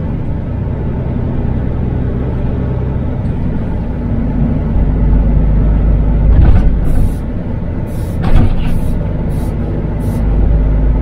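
MAN TGX truck's diesel engine and road noise heard from the cab while driving. The engine's loud drone drops off at the start and then runs on more quietly. Several short air hisses from the truck's air system come about six to ten seconds in.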